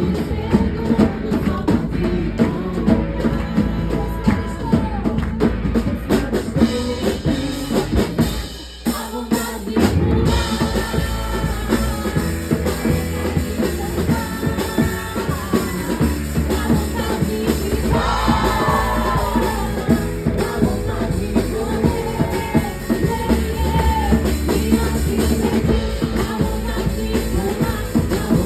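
Worship song played by a band with a drum kit, with singing. The music thins out briefly about nine seconds in.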